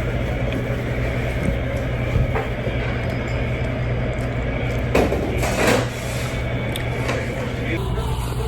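Steady low background hum, with a brief rushing noise about five seconds in and a few faint clicks.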